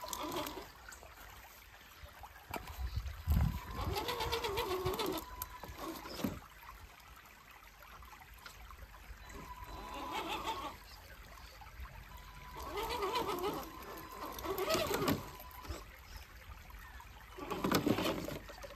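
Electric motor and drivetrain of a 6x6 RC scale truck whining in repeated short bursts of throttle as it crawls over creek-side rocks, with a faint steady whine between bursts. A creek trickles underneath.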